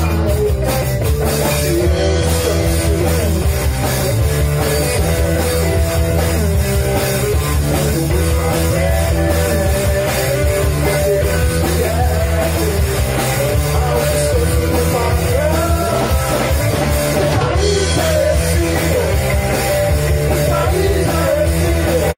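Live rock band playing: electric guitar and bass guitar over a drum kit, loud and continuous.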